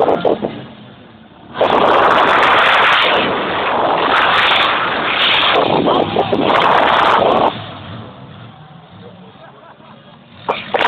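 Loud, distorted engine noise from an off-road cross vehicle on big tractor tyres running hard close by. It starts about a second and a half in, swells and eases a few times, and drops away sharply after about six seconds.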